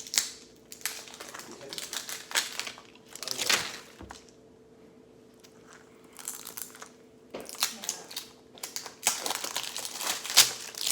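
Plastic wrapping crinkling and tearing in irregular bursts, with short quiet gaps between, as a Mini Brands capsule ball is unwrapped.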